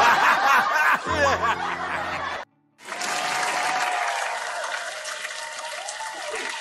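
Canned audience laughter after a punchline, then, after a brief cut about two and a half seconds in, a stretch of steady recorded applause.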